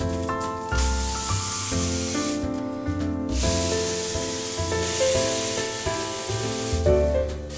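Background music with held notes and a bass line, with a steady rubbing or hissing noise over it that pauses briefly partway through.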